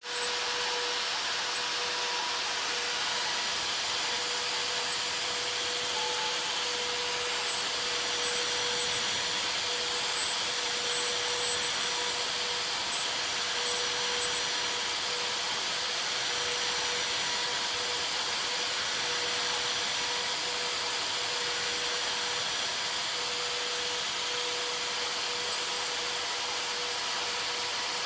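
MechaPlus Pro-Basic CNC router's spindle running with a steady whine while engraving MDF, with an even noise of the cut throughout.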